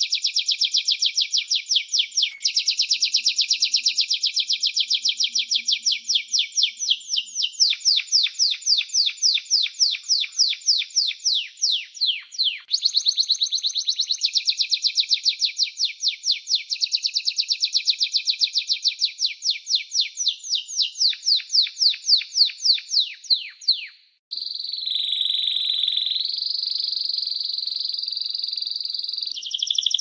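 Domestic canary singing: a long run of rapid trills made of quick falling notes, the speed changing from one trill to the next. After a short break near the end comes a steadier held note that steps in pitch.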